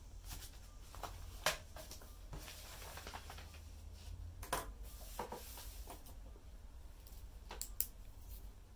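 Quiet handling of a paperback workbook and an answer sheet on a wooden desk: a handful of short, light taps and paper rustles spread through, over a faint low steady hum.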